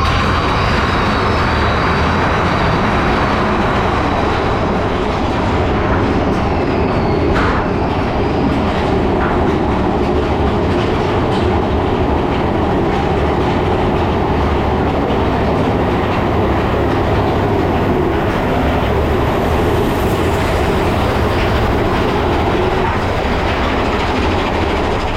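Big Thunder Mountain Railroad mine-train roller coaster running along its track, with a steady loud rumble and clatter of the wheels and a few sharp clacks about seven seconds in.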